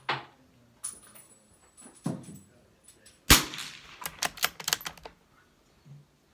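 A single shot from a Brno Model 4 bolt-action .22 rimfire rifle about three seconds in, the loudest sound by far. It is followed straight away by a quick run of sharp metallic clicks as the bolt is worked to eject and chamber the next round. A few lighter knocks come before the shot.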